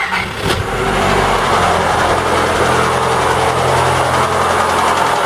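ZAZ Lanos's 1.4 MeMZ-317 four-cylinder petrol engine starting, slightly cooled down, and settling into a steady idle.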